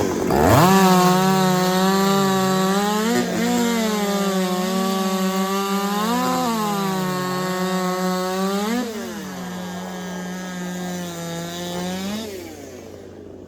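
Two-stroke racing chainsaw of 90cc or less sawing through a log at full throttle. The engine note dips under load and climbs back several times, then falls away about twelve seconds in as the cut ends.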